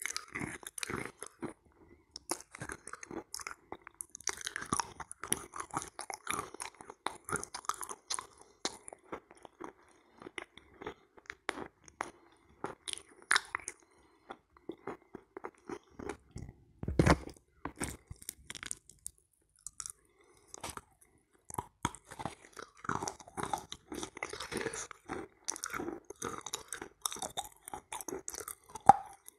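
Close-miked chewing of a soft, crumbly pressed clay-and-chalk 'halva' coated in wet kaolin cream: irregular moist crunches and crackles. There is a louder bite a little past halfway, then a brief pause.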